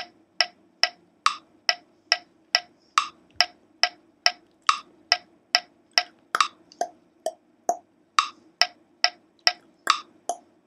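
Metronome click track ticking at an even tempo, a little over two clicks a second, with some clicks louder than others. It is the steady reference pulse to beatbox on top of.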